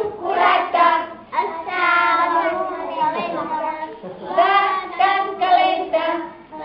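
Young children singing a song together, their voices held on long notes with short breaks between phrases.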